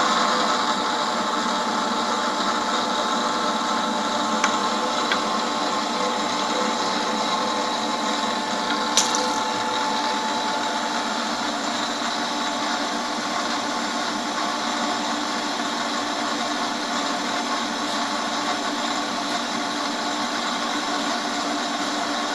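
Bridgeport-clone milling machine running steadily while cutting holes in metal, a constant mechanical noise with a steady tone, broken by a few sharp clicks about four and a half, five and nine seconds in.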